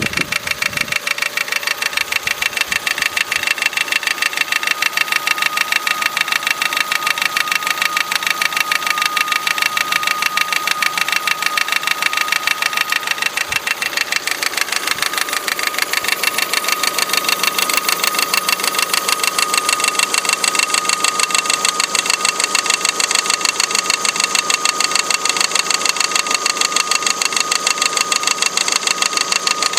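Opel Astra H Z16XEP 1.6-litre four-cylinder petrol engine idling with a fast, even, diesel-like rattle. The clatter comes from the timing-belt tensioner pulley, which was not replaced at the belt change and now vibrates and knocks against the engine block.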